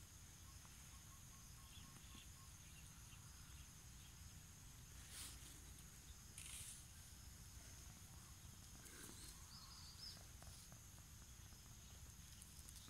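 Near silence: faint outdoor ambience with a low rumble, a faint steady high hum and a couple of brief soft rustles.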